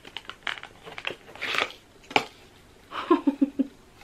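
Card packaging of a set of small wooden fairy doors being opened by hand: scattered sharp clicks and a short rustling tear about a second and a half in. Near the end comes a brief voice sound in four quick pulses.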